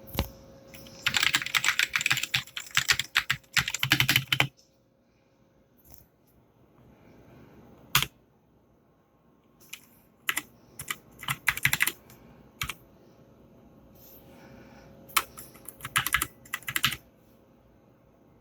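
Typing on a Keychron K6 mechanical keyboard with brown optical switches and PBT double-shot keycaps. A fast run of keystrokes comes in the first few seconds, then a single keystroke, then two shorter bursts of typing.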